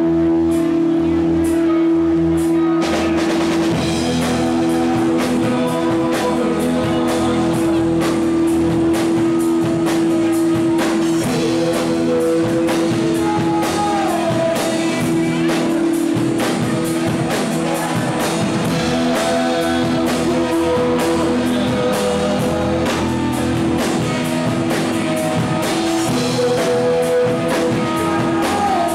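Live rock band playing loudly: electric guitars with bent, sliding notes over a bass line and a steady drum-kit beat.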